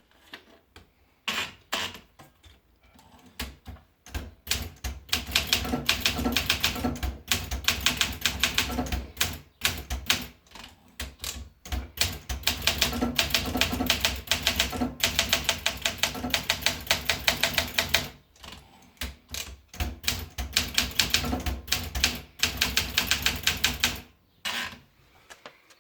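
Olympia SM8 manual portable typewriter being typed on: rapid trains of type-bar strikes in three runs of several seconds each, with a few single keystrokes at the start and near the end.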